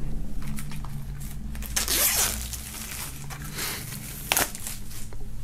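Plastic shrink-wrap film being torn and peeled off a CD digipack, crinkling and crackling. There are louder tearing bursts about two seconds in and again after about four seconds.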